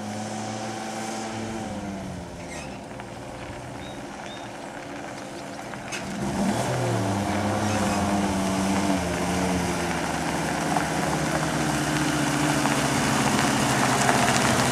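1952 GMC truck's straight-six engine driving the truck along a gravel lane, growing louder as it approaches. The engine note climbs, dips about six seconds in as with a gear change, then climbs again.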